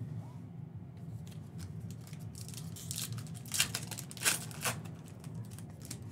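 Foil wrapper of a basketball trading-card pack being torn open by hand, crackling and crinkling, with a few sharp rips about halfway through, over a steady low hum.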